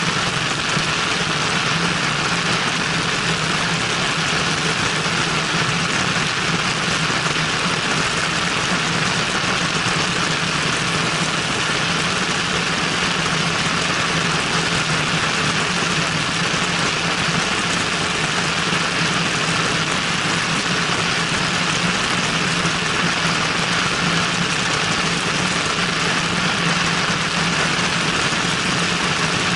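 Cessna 172N's piston engine and propeller running steadily in level flight, heard from a camera mounted outside the aircraft, with a heavy, even rush of wind over it.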